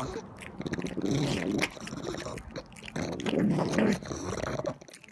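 A dog making vocal sounds in several short bursts.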